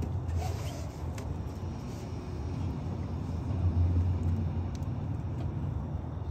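A steady low rumble with a few faint clicks over it.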